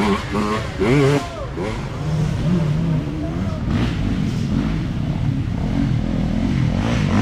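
Dirt bike engines running at low revs, their pitch wavering as the throttle is worked, with people's voices over the first second or so.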